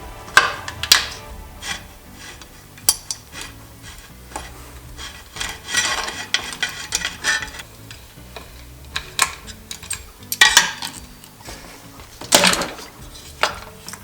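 Metal hand tools and dirt bike parts clinking and scraping as the motorcycle is taken apart. Scattered sharp clicks, with longer rattling scrapes about a second in, around six seconds, and twice near the end.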